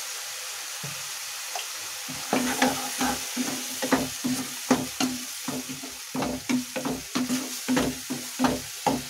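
Wooden spatula stirring and scraping tomato masala in a non-stick kadai over a steady sizzle of frying. The sizzle runs alone at first; about two seconds in, quick repeated stirring strokes begin, about three a second.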